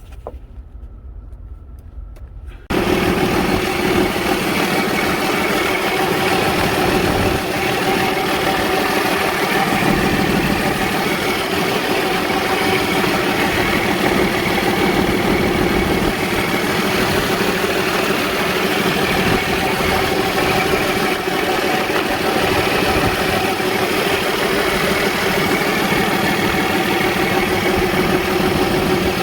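Cummins ISX inline-six diesel truck engine running at a steady idle, coming in suddenly about three seconds in, on a newly replaced fuel pump.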